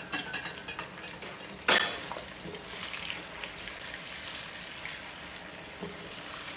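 Diced chicken sizzling gently in shallow oil in a wok while it is stirred with a silicone spatula, with one sharp clack about two seconds in. The chicken is being passed through oil that is only moderately hot, par-frying it just until it turns white.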